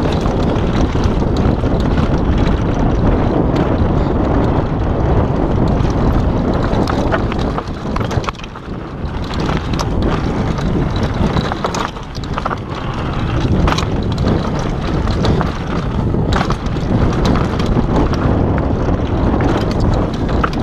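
Wind buffeting the microphone and tyres rumbling over a dirt trail as a downhill mountain bike descends at speed, with scattered knocks and rattles from the bike over bumps.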